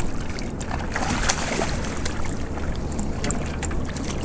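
Water splashing and lapping at the side of a small open boat as a hooked bass is hauled out by hand, with short knocks and a steady rush of wind and sea.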